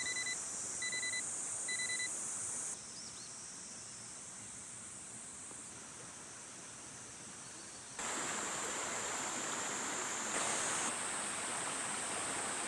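Outdoor summer ambience: a steady high-pitched drone of insects over a soft even hiss, with three short high pips about a second apart at the start. The level drops and rises abruptly twice, as the clips change.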